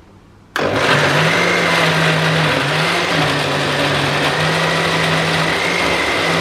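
Countertop blender switched on about half a second in and running steadily, with a constant motor hum and high whine, blending a thick oatmeal-banana pancake batter. The motor's pitch dips briefly a few seconds in, then steadies.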